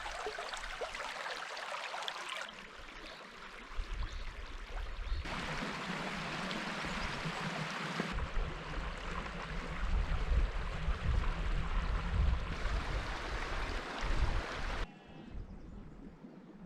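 Outdoor noise: a steady rushing hiss with heavy low wind rumble on the microphone in the middle stretch. It changes abruptly several times, as if between shots.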